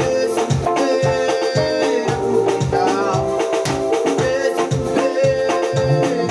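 Upbeat music with a steady drum beat, shaker percussion and sustained melodic lines, with some singing.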